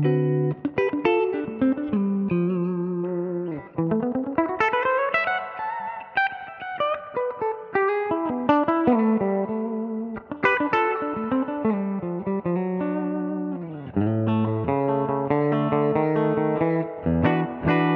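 Conway Leo-T electric guitar with Broadcaster-style single-coil pickups, played clean through a 1965 Fender Princeton valve amp with the amp's spring reverb. It plays flowing single-note lines and chords, with a few sliding notes.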